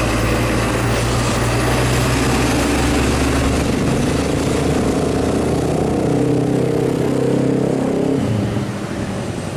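Heavy diesel trucks driving past close by: first the Isuzu FVR's engine with a deep, steady note. About four seconds in that note stops and another truck's engine takes over with a higher note, fading near the end.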